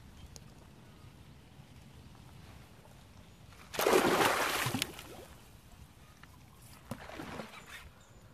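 A loud splash of water about four seconds in, lasting about a second, followed by a weaker splashing sound near the end.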